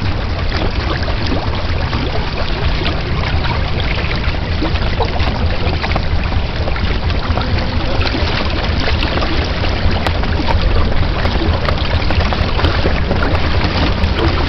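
Water rushing and splashing along the hull of a Weta trimaran under sail, a steady wash of noise with a low rumble of wind on the microphone.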